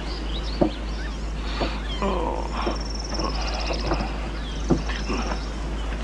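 Animal calls: several high, rapid trills and short chirps, with a few soft knocks over a steady low hum.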